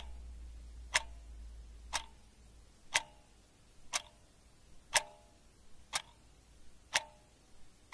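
A clock ticking steadily, one sharp tick a second, eight ticks in all, over a low hum that fades out a few seconds in.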